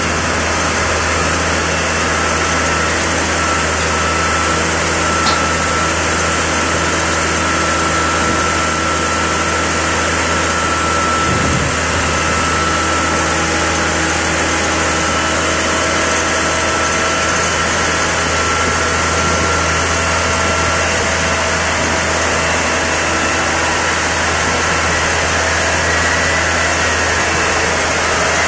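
Manitowoc 14000 crawler crane's diesel engine running steadily, a low drone with a steady whine over it, as the crane works its rock grapple.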